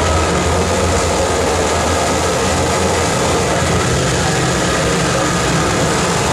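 Harsh noise from a live rig of effects pedals and a mixer: a loud, steady wall of static spread across all pitches with a heavy low rumble underneath.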